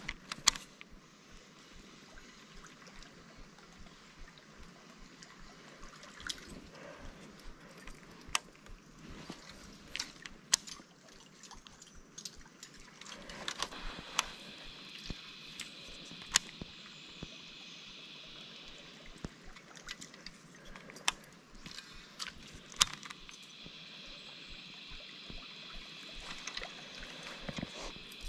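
Shallow creek water trickling and flowing, with scattered sharp clicks and taps throughout. Twice, about halfway through and again near the end, a steady high whirr runs for several seconds.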